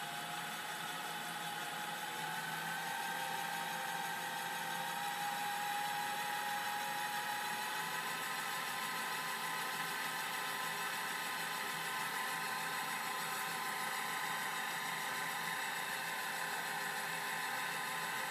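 Electric motor of a laboratory overhead stirrer running steadily, turning its shaft in a thick dairy mix: a steady whir with a whine that climbs slightly in pitch over the first several seconds, then holds.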